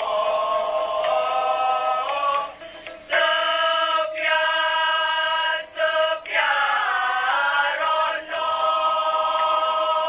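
A mixed school choir singing in parts, holding long chords, with short breaks between phrases about three, six and eight seconds in.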